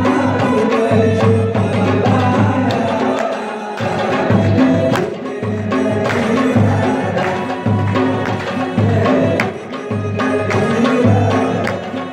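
Regional folk-style song with a steady hand-drum beat; the beat drops out briefly a little before four seconds in, then picks up again.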